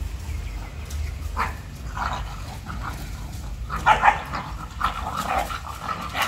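Dogs play-fighting, giving a run of short barks and yips, with the loudest cluster about four seconds in.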